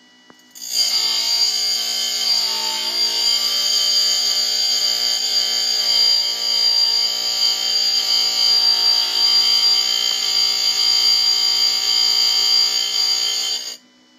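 Tool and cutter grinder's resin bond wheel grinding a carbide nozzle: a loud, steady high-pitched whine that starts abruptly about a second in and cuts off abruptly near the end.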